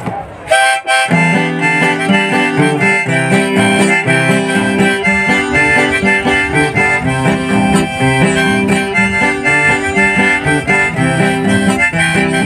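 Background music led by a harmonica over guitar, coming in fully about a second in and then running steadily.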